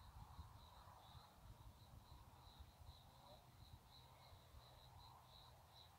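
Near silence: faint outdoor ambience with an insect's high chirp pulsing a few times a second, faint soft bird calls and a faint low rumble.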